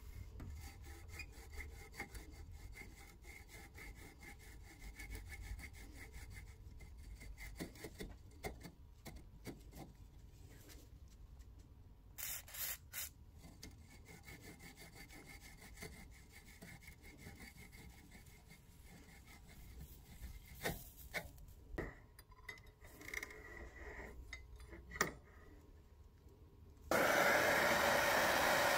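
Rusty metal parts of a tap reseating tool scraping and clicking against pliers and each other as they are worked, with a few short sprays about halfway through. Near the end a blowtorch lights and hisses steadily, much louder than everything before it, as it heats the rusted tool.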